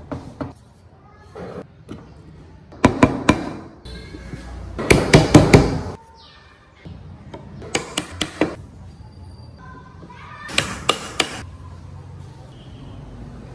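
Carved wooden parts of a hand-made model car knocking and clacking against each other as they are handled and fitted together, in several short clusters of three or four sharp knocks.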